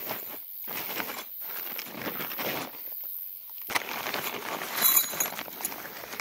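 Rustling handling noise in several irregular bursts, with a few light clicks and clinks, as from tent fabric and camping gear being moved around.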